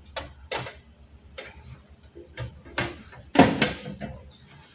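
Old backup battery being pulled out of an alarm panel: a series of short, sharp clicks and knocks, with the loudest clatter about three and a half seconds in, over a faint low hum.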